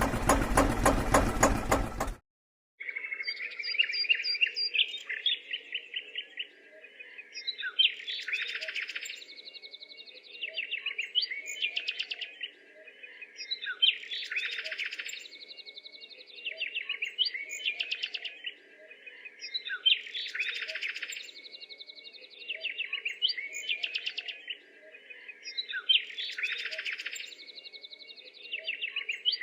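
Birds chirping and twittering in a pattern that repeats about every six seconds, over a faint steady hum. It opens with a loud, harsh noise lasting about two seconds that cuts off abruptly.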